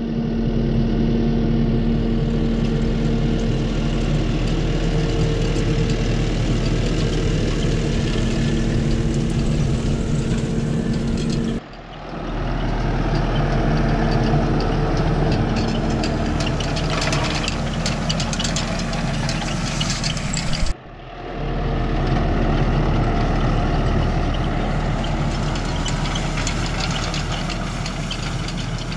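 Tractor engine running steadily while working a round baler in the hay field. The sound cuts off abruptly twice, about twelve and twenty-one seconds in, and picks straight up again.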